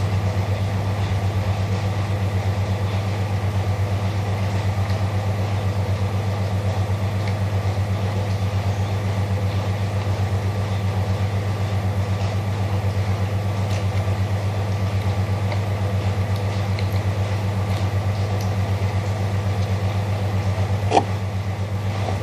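Photocopier running with a steady low hum that pulses evenly, and a single sharp click near the end.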